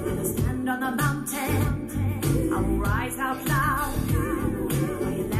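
A pop song with a singer's wavering voice over heavy, regular bass beats, played through an Apple HomePod smart speaker and heard in the room.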